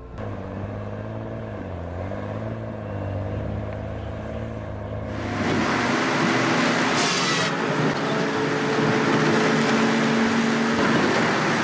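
Heavy machinery running: an engine hums with its pitch dipping and recovering. About five seconds in, a louder, harsher machine sound takes over and stays steady.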